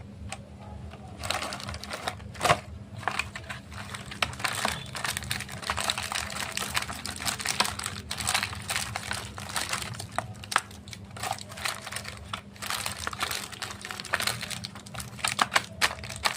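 Chocolate wrappers and plastic packaging crinkling and crackling as they are handled, a dense run of irregular small crackles and clicks over a faint steady hum.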